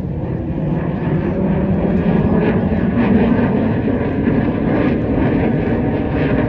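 Military aircraft flying over at an air display: a loud, steady engine rumble that swells slightly a few seconds in.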